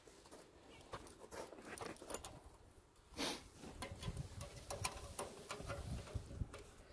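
Steel fence wire being wrapped around itself with a hand wire-twisting tool: scattered light metallic clicks and scrapes. There is a louder scratchy rustle about three seconds in, and low muffled bumps through the second half.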